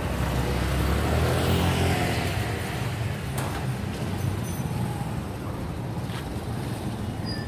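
Road traffic on the bridge overhead: a steady low rumble, with one vehicle passing louder in the first two seconds.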